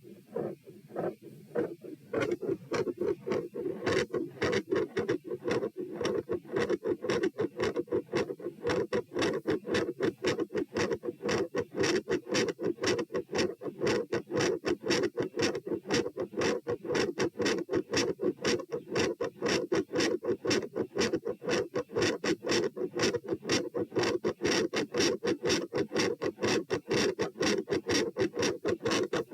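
Heart sounds picked up on the chest during an exercise stress test: a fast, very loud heartbeat, its lub-dub sounds following each other several times a second. About two seconds in, the beats turn abruptly much louder and stay that way.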